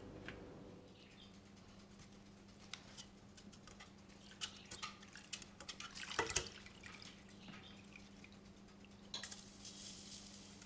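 Faint clicks and taps of metal kitchen tongs and a deep fryer's basket being handled, with a louder clatter about six seconds in and another burst of small clinks near the end, over a faint steady low hum.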